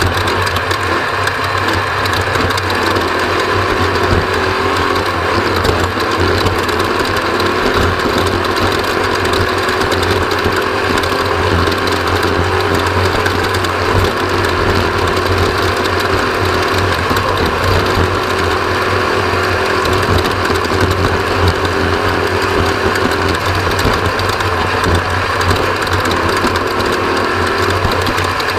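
Off-road race vehicle's engine running steadily at speed, with a continuous mechanical rattle.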